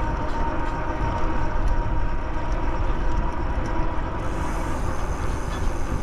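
Wind rushing over the microphone and tyre rumble from an e-bike riding along pavement at speed. A thin steady whine runs under it and fades out about four seconds in.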